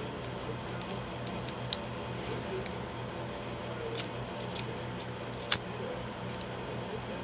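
Scattered sharp clicks and small handling noises from a butane torch lighter being turned and adjusted, the loudest about four and five and a half seconds in, over a steady low hum.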